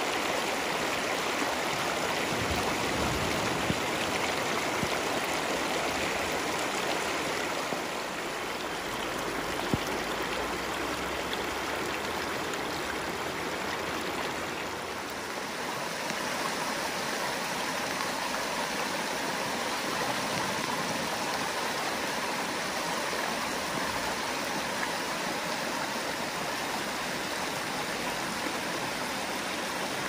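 Shallow stream flowing over beach pebbles and stones, a steady rush of water with a slight dip in level about halfway through.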